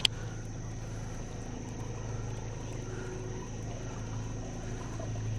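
Steady low hum of a boat motor, with one sharp click right at the start.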